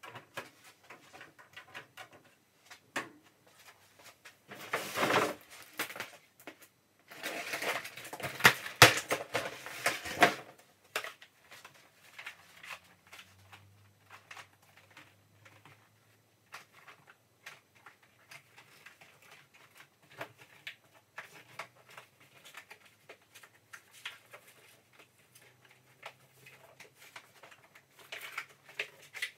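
Handling noise from assembling a wire-grid cage with a corrugated plastic base: two long stretches of crackling, clicking plastic rustle in the first third, then scattered single clicks and knocks of plastic and wire.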